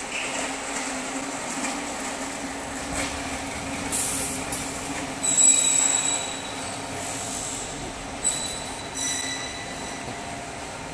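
Steady workshop machine hum, with sharp high-pitched squeaks about five seconds in and again near the end as the welded uPVC window frame is lifted and swung away from the single-head PVC welding machine.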